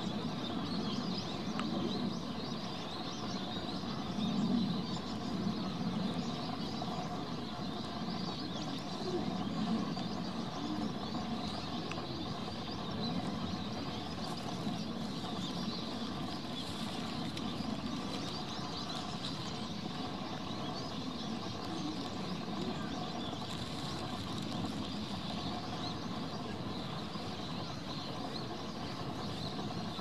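Steady outdoor background noise: a low rumble that swells and fades gently under an even hiss, with no distinct bird call standing out.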